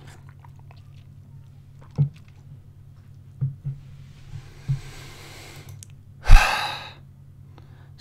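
A man drinking tea from a glass: a click and a few small knocks and swallows, then a loud breathy exhale like a sigh about six seconds in.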